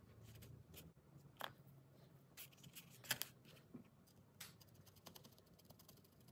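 Fingers handling loose wool fibres and pressing them around a felted wool piece: a few soft, short scratches and rustles, the loudest about three seconds in, then faint quick ticks near the end. Very faint overall.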